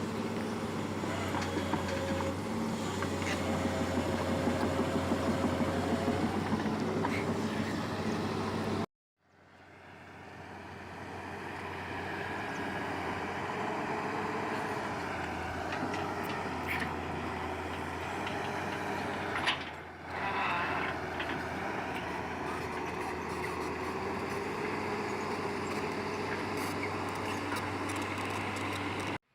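Heavy construction machinery engine running steadily. The sound cuts out abruptly about nine seconds in and fades back in on a second stretch of similar machine running, with a brief louder knock about two-thirds of the way through.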